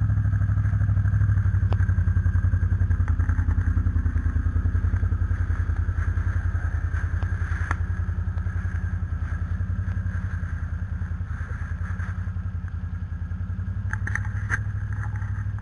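Bombardier Outlander ATV engine running at low, steady revs with an even, rapid exhaust pulse, slowly fading a little, with a few faint clicks.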